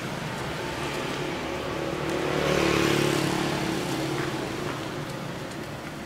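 Street traffic, with a motor vehicle's engine passing close by: it grows louder to a peak about halfway through, then fades.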